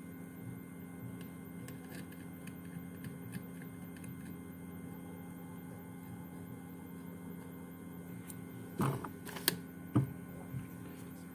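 Steady electrical hum from workbench equipment, with a few light clicks and taps a little before the end.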